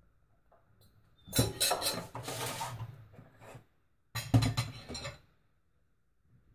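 Kitchenware clattering in two bursts, dishes and cutlery knocking together as they are handled: a longer burst about a second in and a shorter one about four seconds in.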